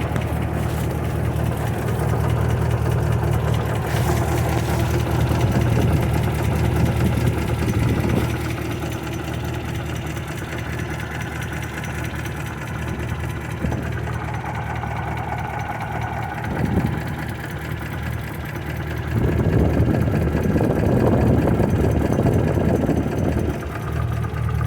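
1940 Buick straight-eight engine running with the flywheel turning, with the knock that the owner puts down to the transmission. It gets louder twice, a couple of seconds in and again near the end.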